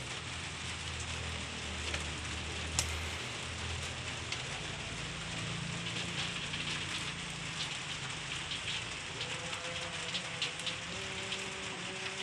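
Etawa goats feeding on a pile of leafy fodder: a steady rustling and crackling of leaves and stems, with scattered sharp snaps.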